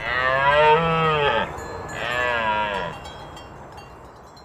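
A farm animal bleating twice: two long calls, about a second and a second and a half, each with a wavering pitch.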